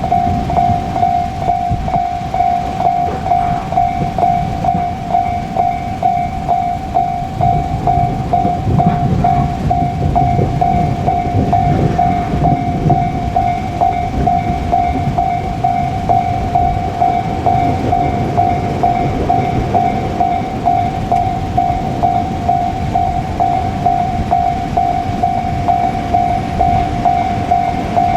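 Level crossing warning bell ringing in a steady, rapid repeating rhythm. Under it, the continuous rumble of a freight train of container wagons, hauled by an ED76 electric locomotive, rolling through the crossing.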